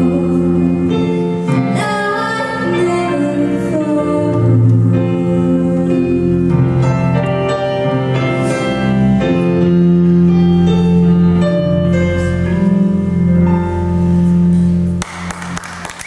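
Live band music, the closing bars of a song with electric bass and a female singer. The music ends about a second before the close, and applause begins.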